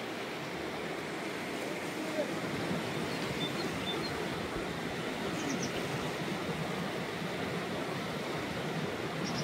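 Steady rushing of flowing water, with a few faint high chirps and faint voices in the background.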